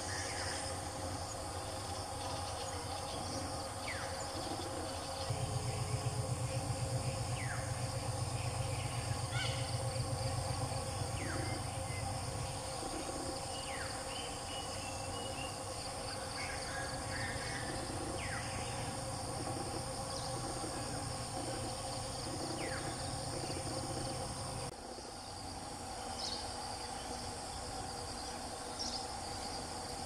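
Insects droning steadily, with short falling calls of small birds repeated every second or two for much of the time. A low pulsing hum comes and goes and stops near the end.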